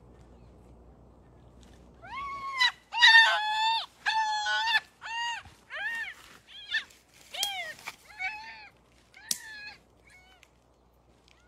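A young goat bleating in distress, about ten high, wavering cries in quick succession, starting about two seconds in, loudest at first and growing fainter toward the end.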